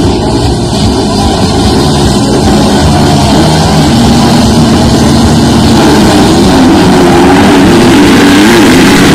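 A pack of motocross bikes revving at the starting gate, engine pitch rising and falling, then pulling away near the end. Music plays along with the engines.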